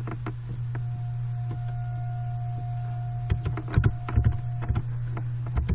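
Computer keyboard keys being typed: a few scattered keystroke clicks, bunched together past the middle, over a steady low electrical hum.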